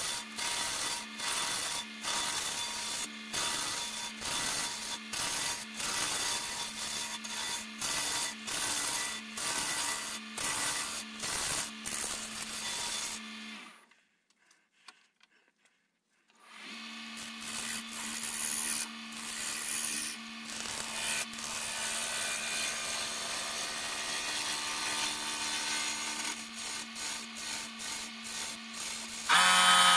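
Wood lathe running with a steady hum while something rubs against the spinning black walnut blank, in uneven strokes about twice a second. The sound drops away for about three seconds in the middle, then resumes. Just before the end a louder, lower hum takes over.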